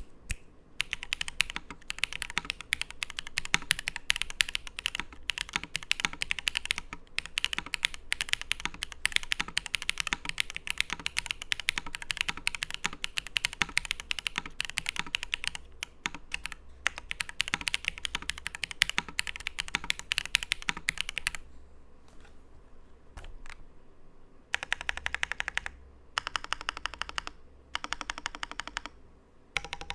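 Typing on a Tiger80 mechanical keyboard with lubed and filmed Gateron Soldark linear switches on a carbon fibre plate, flex-cut and sealed with Teflon. Fast continuous keystrokes stop about two-thirds of the way through, followed by a few single key presses and then three short bursts of typing.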